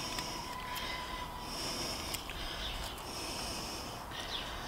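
Knife blade of an S35VN stainless fixed-blade knife cutting and shaving into a stick in a series of short, hissing strokes with small clicks between them, carving a V notch.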